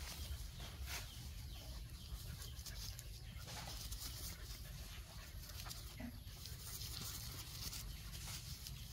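Two young dogs play-wrestling on grass: faint scuffling with a few soft clicks, over a steady low rumble.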